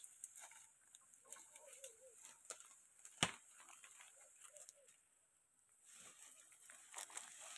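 Quiet forest background with faint crackles and snaps of leaves and twigs as an Asian elephant browses in the undergrowth, with one sharper snap about three seconds in.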